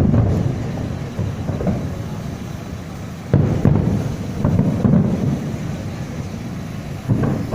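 Fireworks shells bursting in a series of deep booms, the sharpest about three seconds in followed by several more, with a low rumble trailing off between them.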